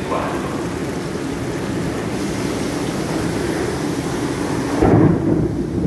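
Steady low rumble of railway station platform ambience, with a louder low buffeting about five seconds in.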